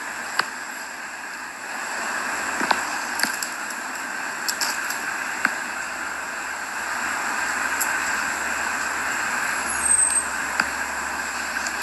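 Steady outdoor background noise with a faint high steady tone and a few brief clicks scattered through it.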